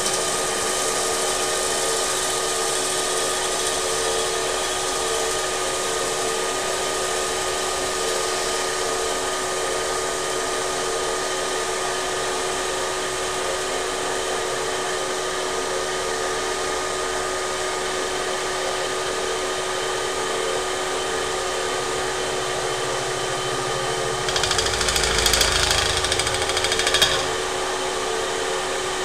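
Metal-spinning lathe running with a steady hum of several held tones as its forming rollers press a spinning aluminium blank over the mandrel into a pot shape. About 24 seconds in, a louder, rougher noise lasts about three seconds.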